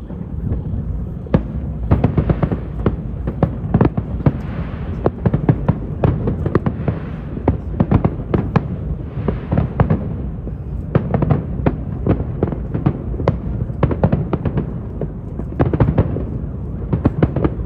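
Fireworks display going off: a dense, continuous run of sharp bangs and cracks over a low rumble and crackle.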